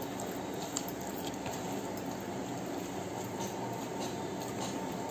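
Bare fingers mixing rice and curry on a plate, then a mouthful being eaten: soft wet squelches and a few faint clicks over a steady low background noise.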